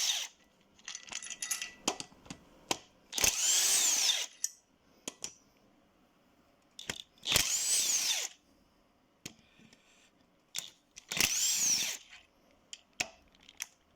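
Drill-driver fitted with a 12 mm socket spinning out the water pump bolts of a G4KD engine. It makes three short runs of about a second each, the motor whine rising and falling every time, with light clicks and clinks between the runs.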